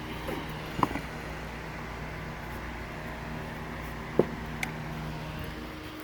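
Two sharp knocks, about one second in and about four seconds in, then a lighter click, from handling a removed BMW Z4 soft-top hydraulic hinge, over a steady low hum.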